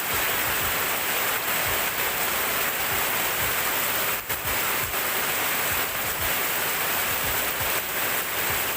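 Heavy rain pouring steadily: a dense, even hiss with scattered low thuds of drops landing close by.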